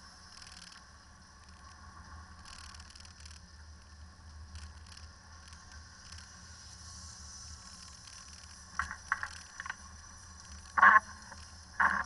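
Land Rover windscreen wiper blades dragging across the glass, with two loud squeaks about a second apart near the end and a few softer ones just before. Under them, the low steady hum of the engine and road inside the cab.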